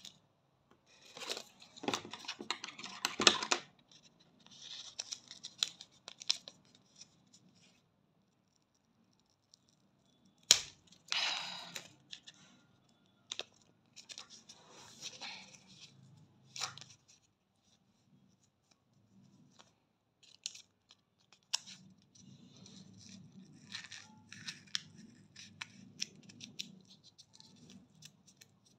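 Ready-to-use wax strips being handled: crinkling, rubbing and peeling of the plastic-backed strips in several short bursts with pauses between, and a sharp snap about ten seconds in.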